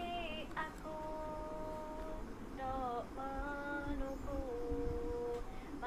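A woman singing slowly in long held notes, sliding down from one pitch to the next between them.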